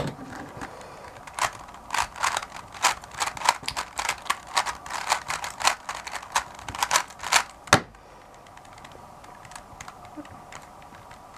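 A 3x3 speedcube being turned quickly through a scramble: a fast, uneven run of sharp plastic clicks from the layer turns for about six seconds, ending in one louder click. After that only faint room hum remains.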